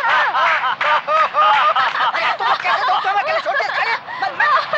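Several people laughing and shrieking together playfully, many voices overlapping.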